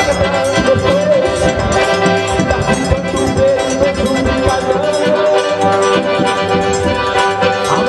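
Accordion playing forró music live with a band, its chords and melody over a steady beat.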